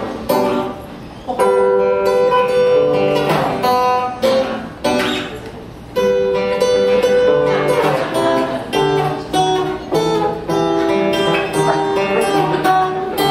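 Acoustic guitar strummed and picked, playing a song in musical phrases.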